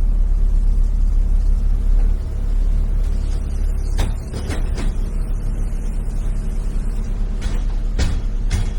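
Scania lorry's diesel engine running steadily with a low hum, with a few short sharp clicks or knocks about four seconds in and again near the end.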